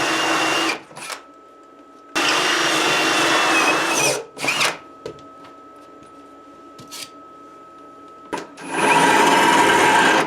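A handheld electric power tool runs in three bursts: a short one at the start, one of about two seconds, and a last one near the end, with a steady motor whine. Between the bursts there are a few clicks.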